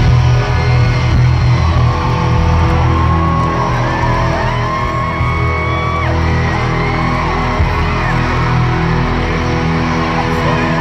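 Pop-punk band playing live at arena volume, electric guitars and drums with low notes held, while the crowd of fans screams and whoops over it, loudest in the middle.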